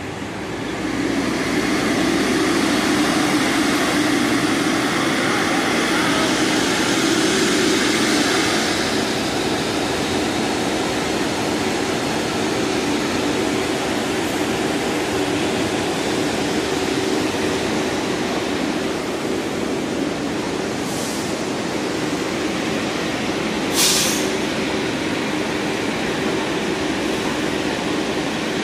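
R62A subway train standing at the platform with its doors open, giving a steady hum. A short hiss comes near the end.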